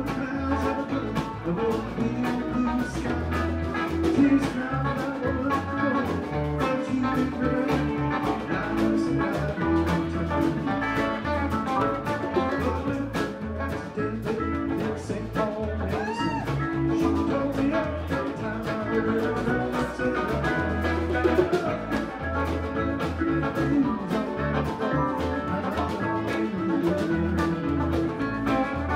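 Live band playing an instrumental passage in a jazzy, bluesy style, with guitar, bass and drum kit keeping a steady beat.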